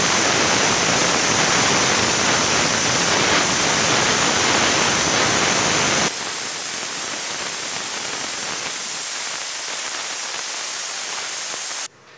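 Stovetop pressure cooker whistling: steam jetting from its weight valve in a loud steady hiss as the cooker reaches pressure. The hiss drops a little about halfway through and cuts off shortly before the end.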